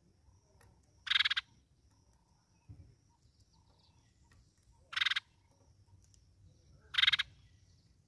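An animal calling: three short, loud rasping calls, one about a second in and two more two seconds apart in the second half, over a faint steady high insect-like tone.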